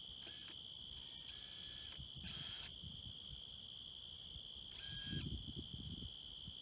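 Steady high-pitched drone of insects in the field, with four short noisy bursts from the tool work on the blind's stairs, the longest near the start and the last about five seconds in.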